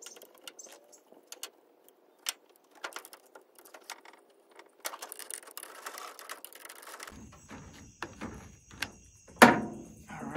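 Kayak carrier parts and hardware being handled and fitted together: a scattered run of small metal clicks and knocks, with a louder knock about nine seconds in.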